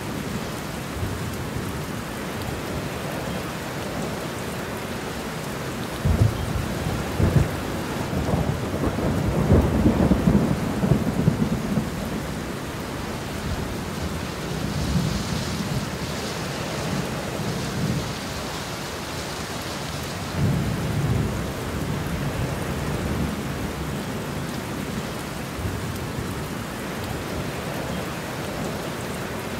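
Heavy rain falling steadily, with thunder rumbling several times: short rumbles about six and seven seconds in, a longer, louder roll from about eight to twelve seconds, and another rumble about twenty seconds in.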